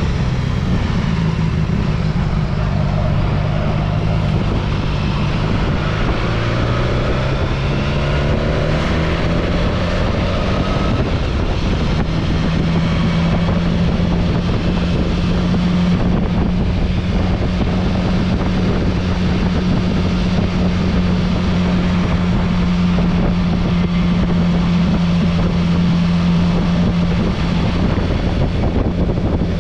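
A vehicle's engine running while under way, with wind noise on the microphone. Its pitch climbs in stages over the first ten seconds or so, then holds steady at cruising speed.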